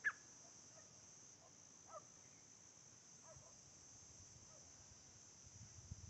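Faint steady high-pitched buzz of insects in dry scrub, with a short chirp falling in pitch right at the start and a couple of fainter chirps a few seconds in. A few low thumps come near the end.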